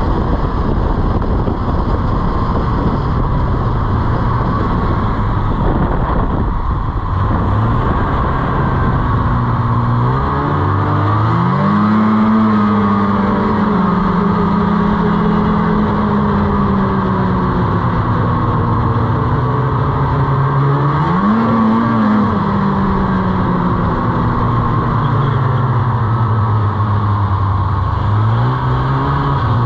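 Snowmobile engine running under way, its pitch climbing as the throttle opens about ten seconds in, rising and falling again briefly a little past the middle, and climbing once more near the end.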